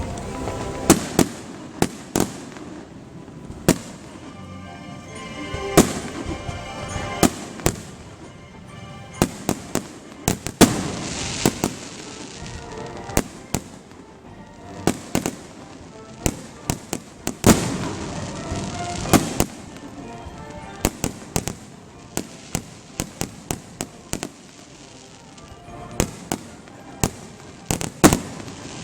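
Fireworks display: many sharp bangs of bursting shells, irregular and sometimes in quick clusters, with crackling between them, over music.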